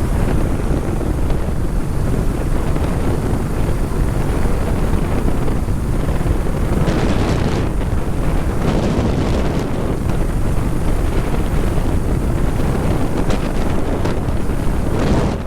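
Loud, steady wind buffeting on the microphone of a rider moving at road speed. It is heaviest in the deep end and drowns out everything else.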